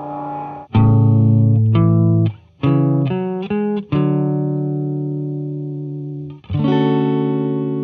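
Electric guitar with a lightly gritty tone, played through an overdrive, analog delay and reverb pedal chain. It strikes a quick run of chords, then lets one ring and slowly fade. About six and a half seconds in it strikes another chord that also rings out.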